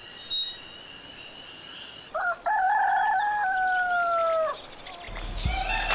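A steady high hiss, then a rooster crows once about two seconds in: a single long call, held and falling slightly at its end.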